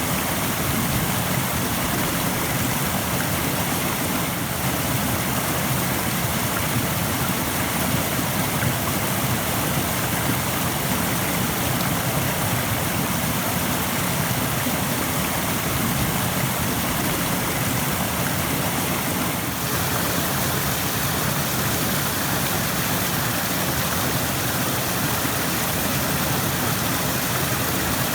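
Rushing stream: a steady, dense rush of water running over rocks.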